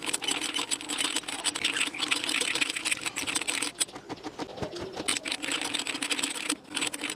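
Hand-cranked homemade sheet-metal roller bender driven through a motorcycle engine gearbox and chain, turning as it rolls a thin steel sheet into a curve. The gear train and chain make a rapid, steady clicking and rattling, with a brief break about six and a half seconds in.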